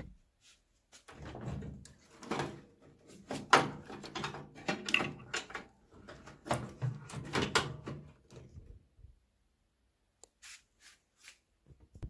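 Wiring being handled inside an opened microwave oven: clicks, rattles and rustles as plastic connectors and wires are worked off a door interlock switch, for most of the time, then a few faint separate clicks near the end.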